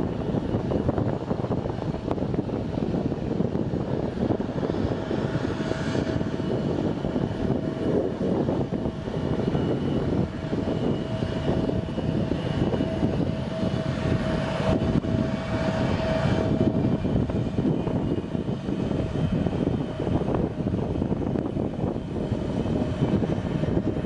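Turbofan engines of an American Eagle Embraer regional jet running as it rolls along the runway: a steady dense rumble, with a whine that comes in about a fifth of the way through and fades out past the middle.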